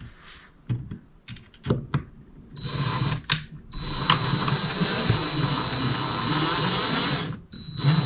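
Power drill driving a screw: a short run, then a steady run of about three and a half seconds with a high motor whine, preceded by a few light clicks of handling.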